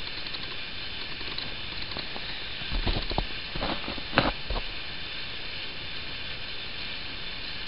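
Small twig campfire, just lit, hissing and crackling as the kindling catches. A few louder snaps and knocks come in a cluster around the middle.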